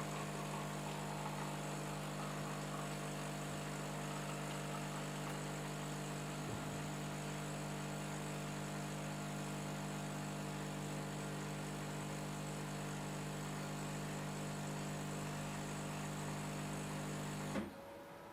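Caffe Society CS Zurich bean-to-cup coffee machine running with a steady hum as it dispenses a long black coffee into the glass. The hum cuts off near the end, as dispensing finishes.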